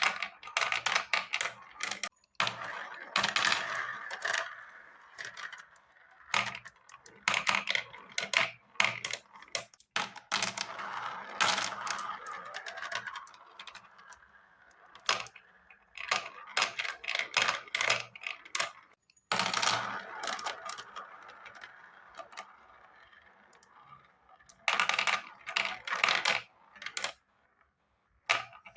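Marbles rolling and clattering down a marble run: rapid clicks and rattles of hard balls on the track over a steady rolling rumble, cutting off abruptly a few times.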